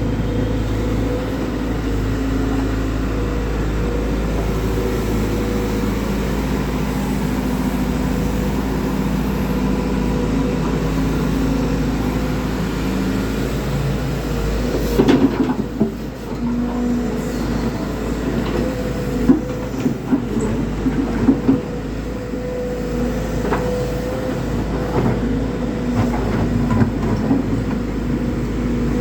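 Heavy diesel engine running steadily, with scattered knocks and rattles from about halfway through.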